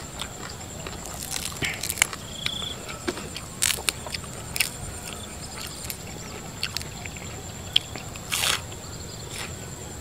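Close-up mouth sounds of eating spicy shrimp salad with fresh leafy greens: wet chewing with scattered clicks, crunches and short crackles. A steady high whine runs underneath.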